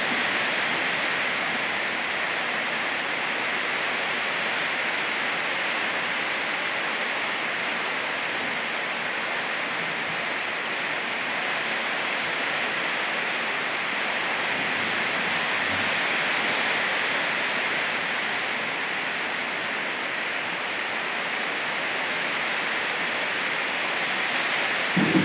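Rain falling steadily, a dense even hiss.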